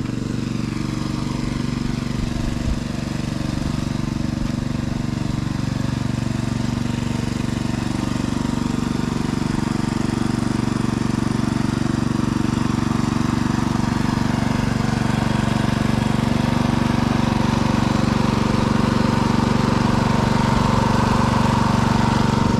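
Small engine-driven water pump running steadily, pumping water out of a fishpond through a hose. It gets slightly louder toward the end.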